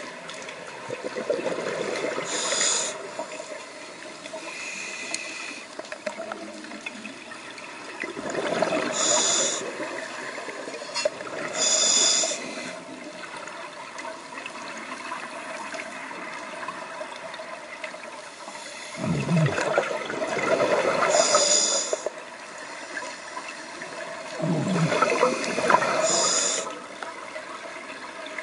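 Scuba diver's regulator breathing underwater: a few slow breaths, each a rush of exhaled bubbles with a short high hiss from the regulator, over a steady watery hiss.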